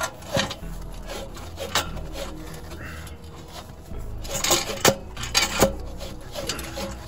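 Polished stainless exhaust tip being twisted and worked off the end of an aftermarket exhaust pipe, with its band clamp: metal rubbing and scraping against metal, with a handful of sharp clinks, most of them bunched between four and six seconds in.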